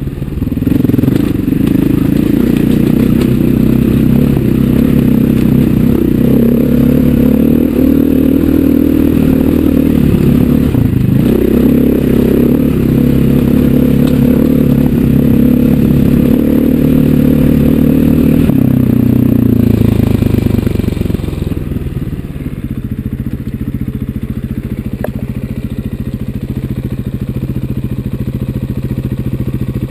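KTM 500 EXC single-cylinder four-stroke dirt-bike engine running under load, its revs rising and falling as the rider works the throttle. About twenty seconds in it eases off and settles to a quieter, steadier low note.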